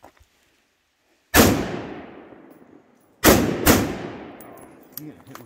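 Three rifle shots from an AR-15 and a Kel-Tec SU16: one about a second in, then two more half a second apart near the middle. Each is a sharp crack followed by a long echo that dies away over a second or more.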